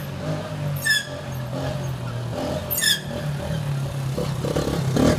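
Quad ATV engine running steadily as the four-wheeler approaches in a wheelie, growing louder toward the end. Short, sharp, high-pitched chirps come about a second in and again near three seconds.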